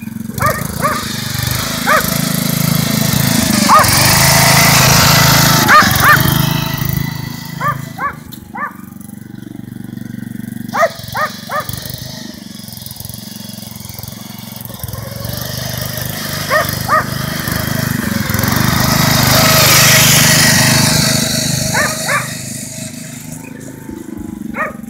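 Custom ride-on lawnmower's small engine running. It grows louder twice as it drives close by, and a dog barks in short bursts over it all the way through.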